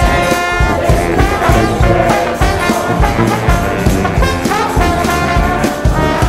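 Upbeat music with brass instruments over a steady beat.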